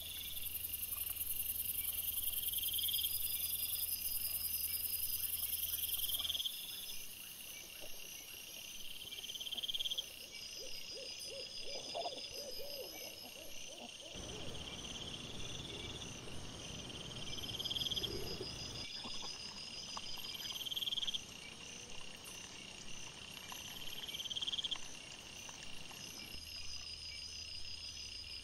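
Night insects chirping in evenly repeating phrases. About twelve seconds in there is a short run of grunting calls from wild boar at the camera. The background hum and hiss changes abruptly several times where trail-camera clips are joined.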